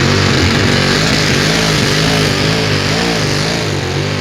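A pulling vehicle's high-horsepower engine running loud at full throttle during a pull, its pitch wavering up and down.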